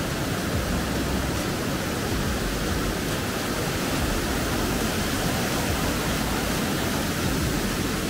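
Steady rush of a waterfall and the fast, churning stream below it.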